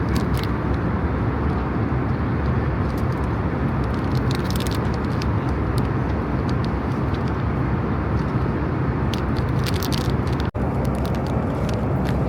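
Steady drone of an airliner cabin in flight, with scattered light clicks and scrapes from eating a meal. The sound drops out for an instant about ten and a half seconds in.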